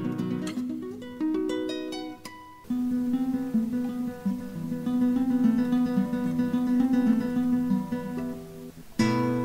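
Acoustic guitar music: single picked notes at first, then a long passage of quickly repeated notes, with a new strummed chord near the end.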